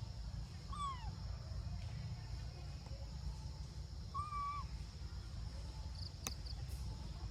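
Macaque coo calls: two short arching calls, one about a second in and one about four seconds in, over a steady low rumble. A few faint high chirps and a sharp click come near the end.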